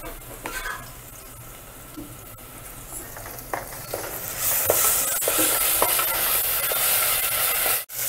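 Ginger-garlic paste sizzling in hot oil with fried onions in an aluminium pressure cooker as it is stirred with a wooden spatula. A few light knocks come as the paste goes in and is worked around. The sizzling grows loud about four seconds in.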